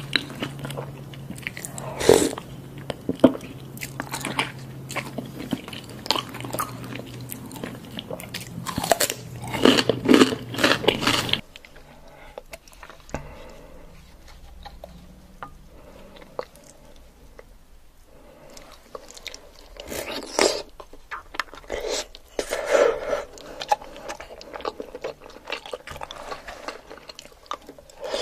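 Close-miked mukbang eating: biting and chewing of soft-boiled eggs and other food, with wet mouth clicks and bursts of chewing. A low background hum drops out about a third of the way through.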